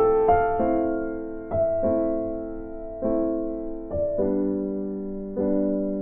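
Background music: slow electric piano notes and chords, each struck and left to fade, a new one about every second or so.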